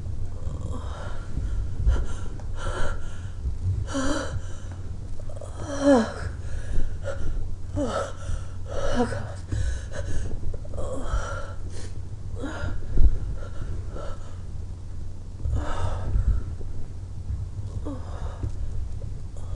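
A person gasping and moaning in short breathy bursts, roughly one a second, several sliding down in pitch.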